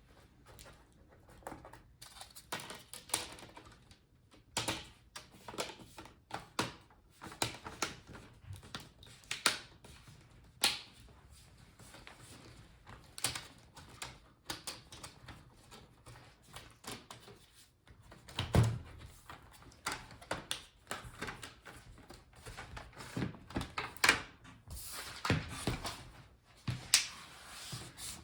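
Plastic front bezel of a laptop screen being handled and pressed into place by hand: scattered, irregular plastic clicks and taps, with one heavier knock about two-thirds of the way through.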